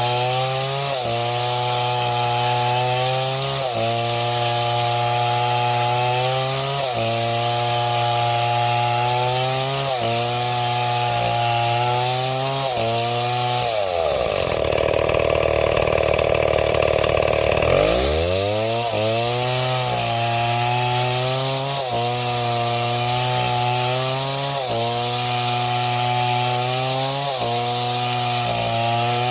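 Two-stroke chainsaw running under cutting load, its engine pitch sagging and recovering every couple of seconds. About halfway through it bogs down deeply for a few seconds, then revs back up.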